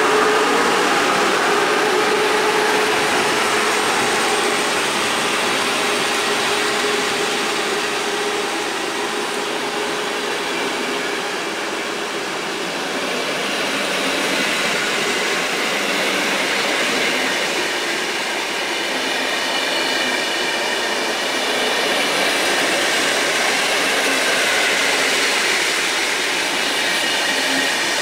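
An electric locomotive hauling a PKP Intercity passenger train past a platform. Its motor whine fades in the first few seconds as it draws away. Then the coaches roll by with steady wheel-on-rail noise, and a higher ringing joins about halfway through.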